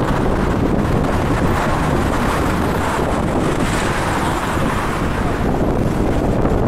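Steady road traffic: cars, vans and pickups driving past on a multi-lane city road, a constant wash of engine and tyre noise.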